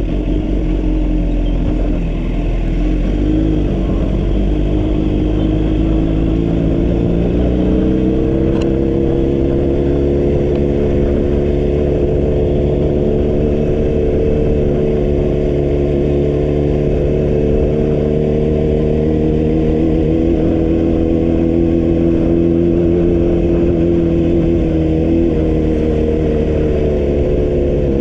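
Vehicle engine running on the move, its note climbing slightly several seconds in and then holding steady over a low road and wind rumble.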